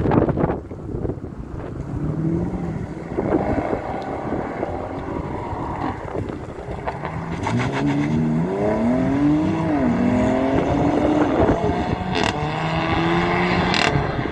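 Audi RS6 twin-turbo V8 through an Akrapovič exhaust accelerating hard away, its revs climbing and dropping again with each upshift, with a few sharp exhaust pops. Wind buffets the microphone.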